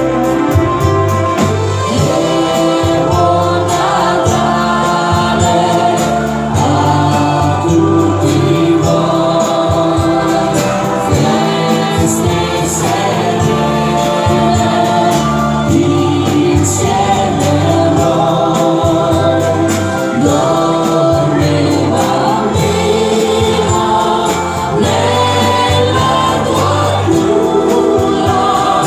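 Live band music for a Christmas song: sustained choir-like voices and keyboard chords over a steady drum beat, with no sung words.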